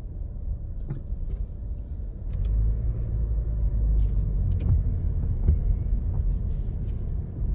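Car interior while driving: low engine and road rumble that swells about two seconds in as the car pulls away, with scattered light clicks and ticks.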